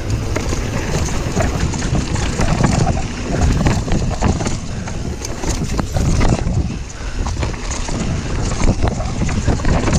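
Wind buffeting a helmet camera's microphone as a mountain bike rolls down a dirt woodland trail, its tyres rumbling on the ground and the bike clattering with many small knocks and rattles over bumps.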